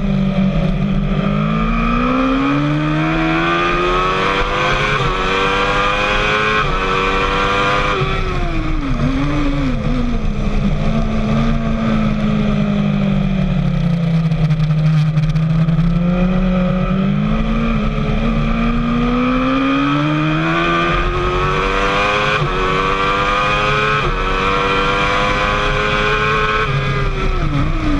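Sport motorcycle engine heard on board, revving up through the gears with quick pitch drops at each upshift, then falling in pitch with short throttle blips on downshifts under braking; this happens twice.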